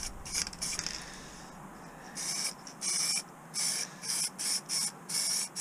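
Aerosol can of Holts gunmetal grey metallic spray paint hissing in a series of short bursts, mostly in the second half, as a light coat is built up on a model truck chassis.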